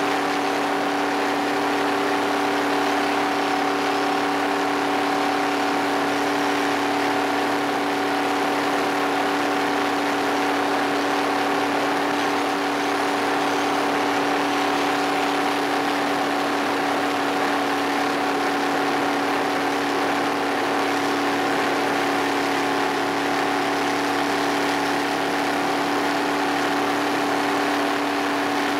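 Jet boat's engine running steadily at speed, holding an even pitch, over a constant rush of wind and water.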